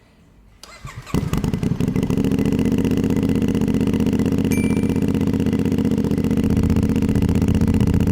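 A twin-cylinder motorcycle engine with a dual exhaust is started: a brief crank, then it catches about a second in and settles into a steady idle.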